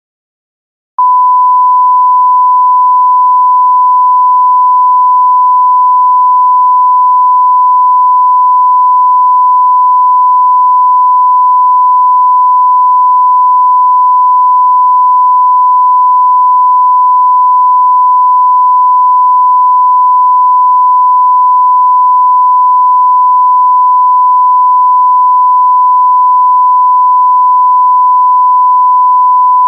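Censor bleep: one loud, steady tone that starts about a second in and holds unbroken at the same pitch.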